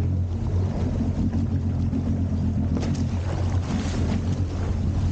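Jet ski engine running at a steady speed under way, with the hiss of hull spray and wind on the microphone. The splashing grows louder about three seconds in.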